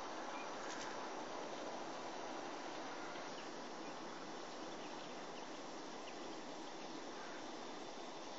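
Steady outdoor background hiss with a few faint, short, high chirps of small birds.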